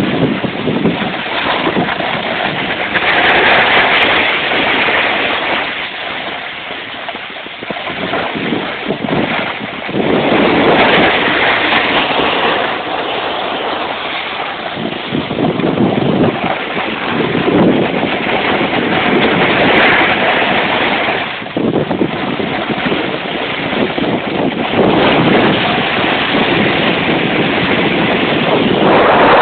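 Snowboard sliding and scraping over snow, mixed with wind rushing over a phone's microphone. The noise is loud and continuous, swelling and easing every few seconds.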